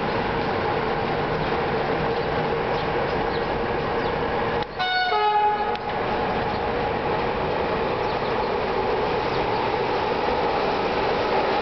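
Romanian CFR 'Delfin' electric locomotive running past with a steady hum. About five seconds in a locomotive horn gives one short two-tone blast, a higher note then a lower one.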